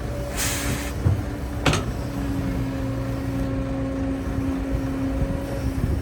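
Excavator's diesel engine running steadily, with a short hiss about half a second in and a sharp knock just under two seconds in.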